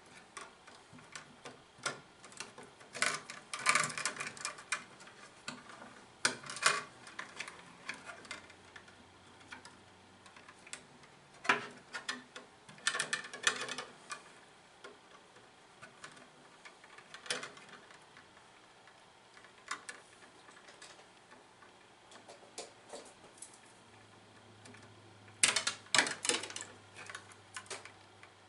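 Hands working electrical cable and wires into a plastic electrical box: irregular bursts of sharp clicks, taps and rustling, with quiet stretches between them.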